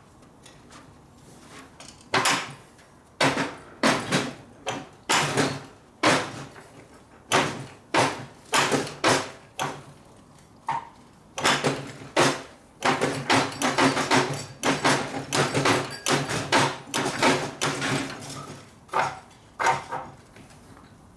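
Hammer blows on a tool being driven into the end of a motorcycle exhaust pipe to swage it into an oval, each strike ringing through the metal. The strikes come about a second apart at first, quicken to a fast run in the middle, then thin out near the end.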